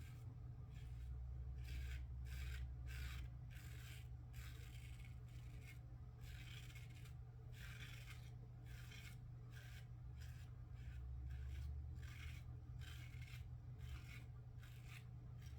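Vintage Kampfe Bros. Star Lather Catcher single-edge safety razor scraping through lathered stubble in short strokes, about two a second, with brief pauses between runs, over a faint steady low hum.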